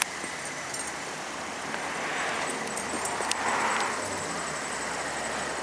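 Holden Commodore V6 engine idling steadily and quietly, with a few small clicks about the start and a broad rushing swell partway through.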